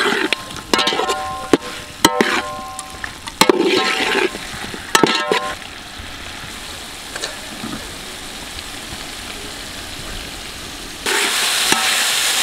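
Metal ladle stirring and scraping chicken pieces around a metal pot, several ringing scrapes in the first five seconds, over a sizzle of masala frying in oil. About eleven seconds in, a louder sizzle starts abruptly.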